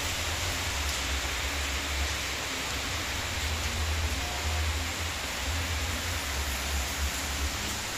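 Heavy rain falling steadily as a dense, even hiss, with a fluctuating low rumble underneath.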